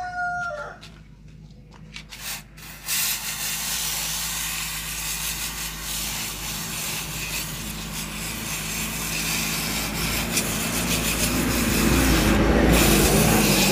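Aerosol carburettor cleaner spraying through a thin extension straw onto a copper-mesh fuel strainer: a few clicks, then a long steady hiss from about three seconds in, growing a little louder near the end.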